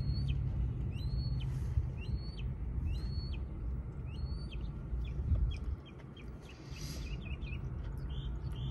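A bird calling over and over, a short high call about once a second, turning to quicker, shorter notes in the second half. A low rumble sits underneath and drops away about six seconds in.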